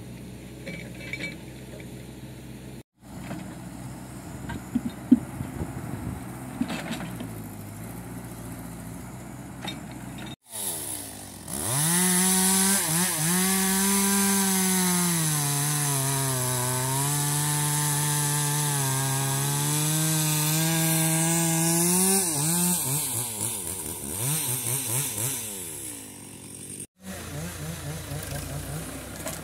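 A small engine runs at high revs for about fifteen seconds in the middle, its pitch dipping and recovering as if it is labouring under load, with a hiss over it. Before it come quieter outdoor sounds with a few sharp knocks.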